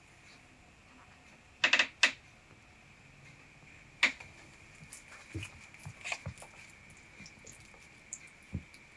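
A few sharp clicks and taps, a quick cluster about two seconds in and single ones around four and six seconds, over a faint steady high-pitched whine.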